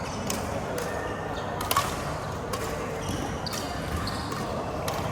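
Badminton rally: rackets striking the shuttlecock, four sharp hits roughly a second apart, over a murmur of voices.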